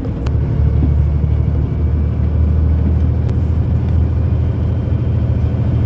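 Dump truck's diesel engine and road noise heard from inside the cab while driving: a steady low rumble, with a few faint ticks.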